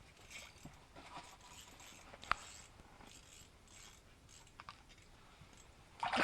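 Faint rustling and scraping handling noises, with one sharp click a little over two seconds in.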